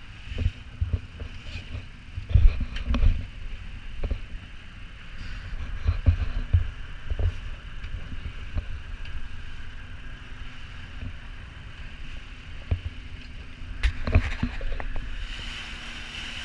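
Irregular low thumps and a few sharper knocks on a small boat's deck as dive gear is handled, over a steady hum.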